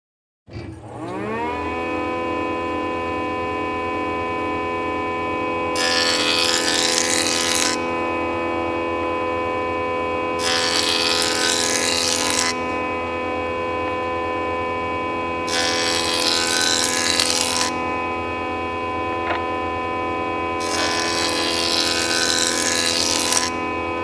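Woodworking jointer switched on, its motor and cutterhead spinning up with a rising whine about half a second in and then running steadily. Four times, for about two seconds each, a louder rushing noise rises over the whine as boards are fed across the spinning cutterhead.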